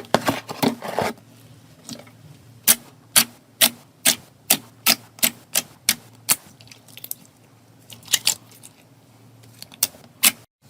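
Slime being pressed and squeezed by hand, giving sharp crackling clicks: a quick flurry at the start, then an even run of about three clicks a second through the middle, then a few scattered pairs.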